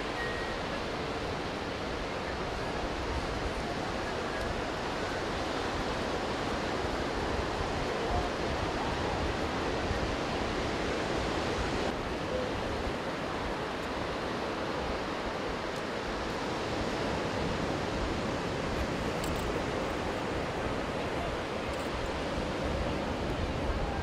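Ocean surf washing onto a sandy beach, a steady unbroken wash of noise, with some wind.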